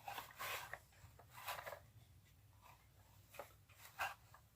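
Faint rustling and scraping of small parts being handled, in a few short bursts: near the start, about a second and a half in, and two closer together around three and a half to four seconds in, the last the loudest.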